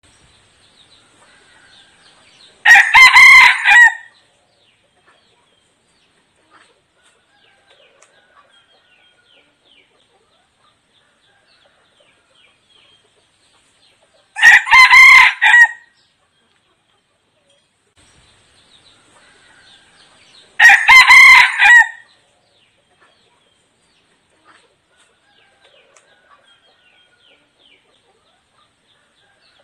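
Red junglefowl decoy rooster crowing three times, each crow short and clipped at about a second and a half: near the start, about halfway, and again some six seconds later. Faint small calls are heard between the crows.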